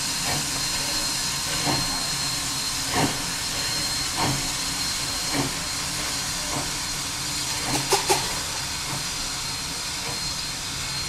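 Sierra Railway #3, an 1891 Rogers 4-6-0 steam locomotive, hissing steam steadily, with a soft beat about every second and a quarter and three quick, sharper sounds close together about eight seconds in.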